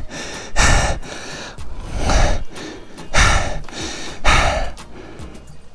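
A person's heavy breathing close to the microphone: four loud, noisy breaths about a second apart, the panting of someone out of breath from exertion.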